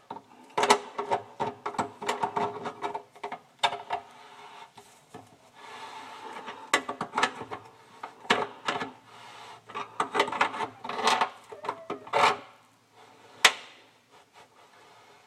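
Channel-lock pliers gripping and turning the lock nut of a sink basket strainer as it is tightened: repeated scraping and clicking strokes in two runs, with a short pause between them while the pliers are reset.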